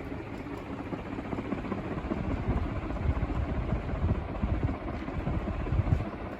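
Martec UFO-motor ceiling fan running steadily, with a steady whoosh of moving air. A gusty low rumble swells in the middle and fades near the end.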